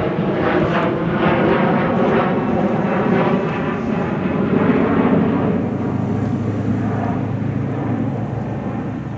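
Jet noise from a climbing Bombardier CRJ regional jet's rear-mounted turbofans passing overhead, loud at first and slowly fading from about six seconds in. A low steady drone comes in underneath about halfway through.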